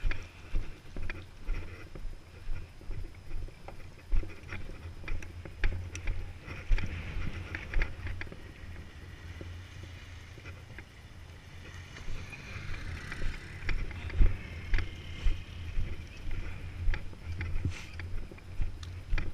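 Regular low thuds of footsteps picked up by a body-worn camera, about two a second. They ease off for a few seconds in the middle, with a few short sharp clicks in between.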